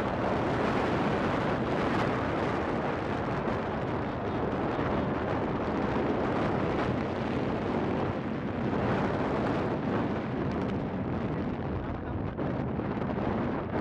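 Wind rushing over the microphone of a moving motorcycle, with the bike's engine and road noise underneath.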